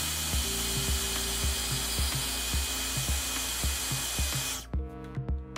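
Hairdryer blowing, a loud steady rush of air that cuts off suddenly near the end, used to warm and loosen the adhesive holding the front sensor flex to the phone screen. Background music with a steady beat plays underneath.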